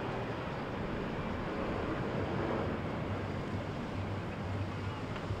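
A motorboat's engine running with a steady low drone, under the wash of waves and wind blowing on the microphone.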